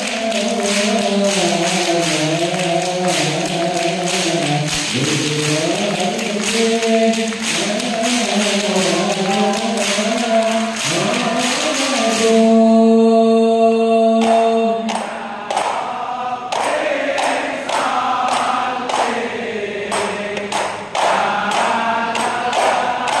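A very large crowd of male voices chanting a prayer in unison, the melody rising and falling, with one long held note about halfway through before the chant moves higher for the last several seconds.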